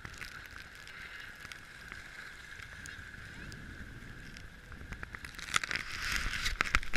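Skis sliding on packed snow, a steady scraping hiss with small ticks. In the last second and a half, louder rubbing and knocks as a gloved hand handles the camera.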